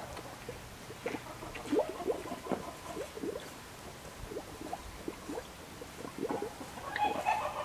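A pig blowing bubbles in its water dish: quick, irregular bubbling and gurgling with its nose in the water.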